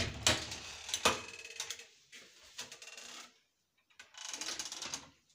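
Wooden wardrobe door being handled on its metal hinge: a loud knock at the start, then a run of small rattling mechanical clicks, pausing briefly a little after three seconds and returning near the end.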